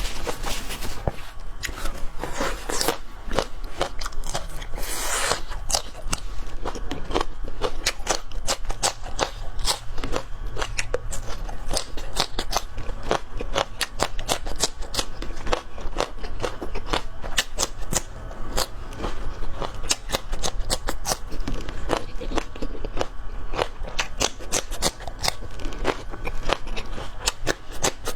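Close-miked chewing and biting of enoki mushrooms, a rapid, continuous run of small crunchy, squeaky clicks.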